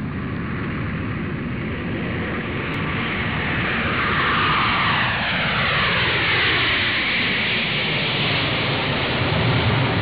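Rumbling whoosh sound effect: a steady roar that swells, with a long falling sweep in the middle like something passing overhead, and a deeper rumble near the end.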